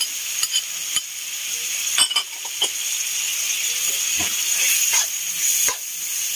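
Pork, tomatoes, onions and flaked smoked fish sizzling in hot oil in a wok, stirred with a metal ladle. A steady frying hiss is broken by sharp clicks and scrapes of the ladle against the pan about once a second.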